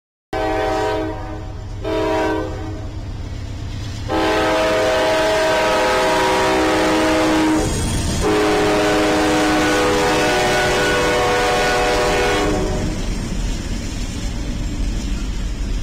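Diesel locomotive air horn: two shorter blasts, then two long blasts beginning about four seconds in. After the horn stops, the train rumbles and clatters past.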